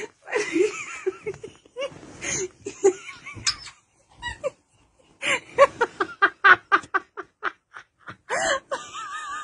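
A person laughing hard, breaking into a fast run of short "ha" pulses, about four a second, in the middle, and laughing louder again near the end.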